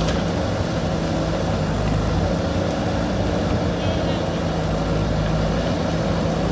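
Backhoe loader's diesel engine running steadily at a constant speed.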